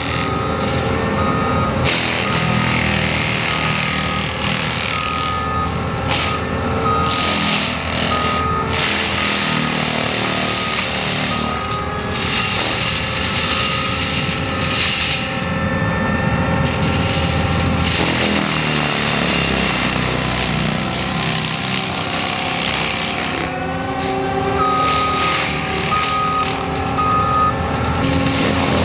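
ASV 135 compact track loader with a forestry mulcher running steadily. Its backup alarm beeps about once a second for the first nine seconds or so, and again near the end, as the machine reverses.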